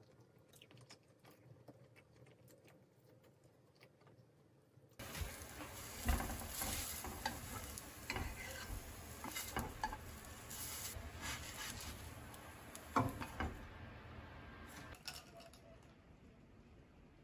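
Food sizzling in a pan while a utensil stirs it, clinking and knocking against the pan. The sizzling starts suddenly about five seconds in and stops a second or two before the end. A few faint clicks come before it.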